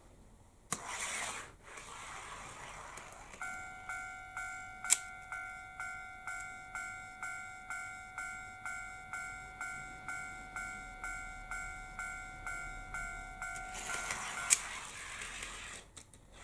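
Electronic warning bell of a KATO automatic model level crossing ringing a steady ding-ding about twice a second. It starts about three seconds in and stops abruptly near the end. A hissing rush of a model train running on the track surrounds it, with a few sharp clicks.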